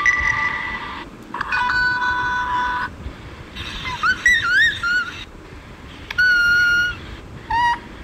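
Samsung phone notification tones played one after another through a phone speaker: a chime of held notes, then a whistled tone gliding up and down, then a held ringing note and a short rising blip.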